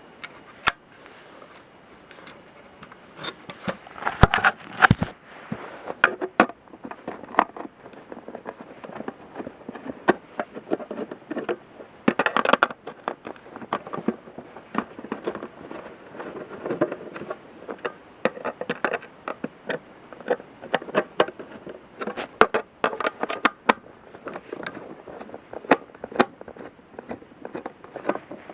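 Handling noise from a plastic smoke detector: irregular clicks, knocks and scraping, with the loudest clusters about four seconds in, about twelve seconds in and near twenty-two seconds in. The alarm horn does not sound.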